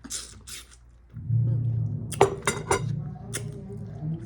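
Bass-heavy music from a stereo in another room comes in suddenly about a second in and carries on steadily. Over it are a few sharp clicks from eating and cutlery.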